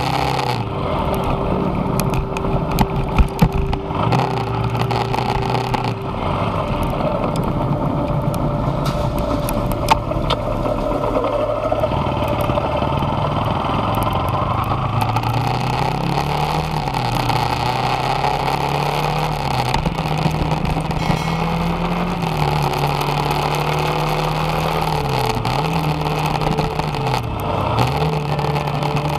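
Motorcycle engine running while riding along a street, its note rising and falling with the throttle and dipping twice near the end. A few sharp knocks about three seconds in.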